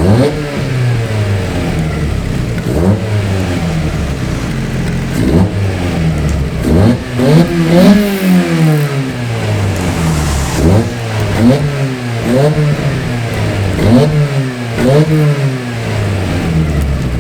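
Toyota MR2 AW11's 4A-GE four-cylinder engine through a Supersprint straight-through muffler, idling and blipped repeatedly, each rev rising and dropping straight back to idle, with one longer rev about halfway through.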